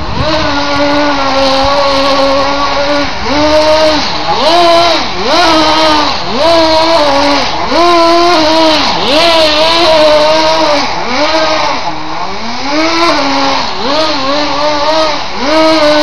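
Electric drive of a radio-controlled Tamiya Blizzard tracked model whining, the motor and gears holding one pitch for about three seconds, then repeatedly speeding up and slowing, the pitch swooping up and down over and over.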